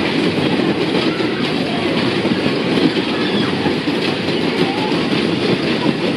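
Hayes Fabrications Skid fairground ride in motion: the cars' wheels give a steady, dense rumble and clatter as they are swung round the ride's floor.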